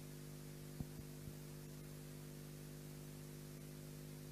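Steady electrical mains hum from the sound system, with a sharp click just under a second in and two fainter clicks just after.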